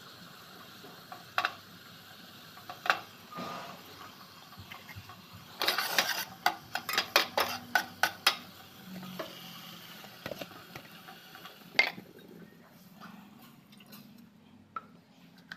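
Kitchen utensils clinking and tapping against a pan and dish while a sugar-and-cherry syrup is prepared: a few separate knocks, then a quick run of sharp taps about halfway through.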